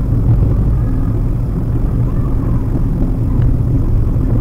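Steady low rumble of a car driving at road speed, heard from inside the cabin: engine and tyre noise of a Maruti Suzuki WagonR.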